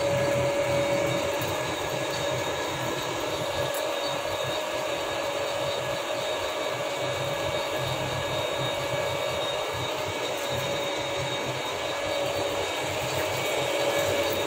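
Dainichi DLG-8 engine lathe running, a steady mechanical hum with one constant whine.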